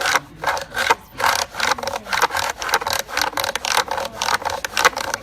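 Chisel scraping into wood on a traditional foot-and-hand-worked lathe: rhythmic cutting strokes, about two to three a second.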